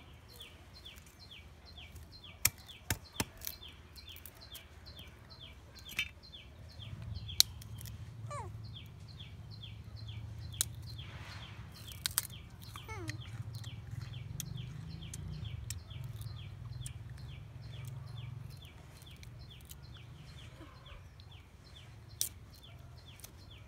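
Steady background chirping, short calls repeated about four times a second, with scattered sharp snaps and clicks from a fibrous plant stalk being broken and peeled by hand. A low rumble comes up for several seconds in the middle.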